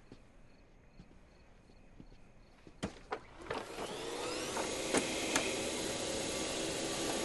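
Vacuum cleaner switched on about three seconds in: a couple of clicks, then the motor whines up to speed and runs steadily, with a few knocks as it is pushed.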